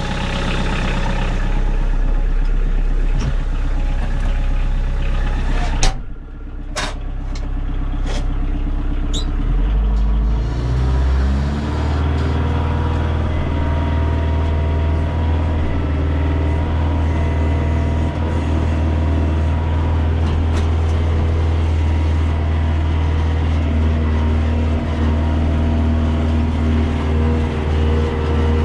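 Tractor engine running, with a sharp knock about six seconds in; around ten seconds the engine revs up and then runs steadily at the higher speed as the tractor moves off.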